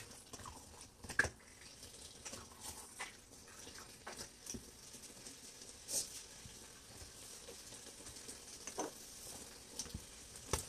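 Palm oil stew frying in a pot: a faint steady sizzle with irregular pops and spits, one louder click about a second in.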